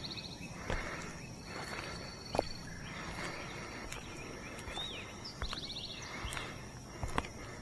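Outdoor ambience: a steady high-pitched insect drone, with two short buzzy trills and a few chirps from birds or insects, and a few scattered light knocks.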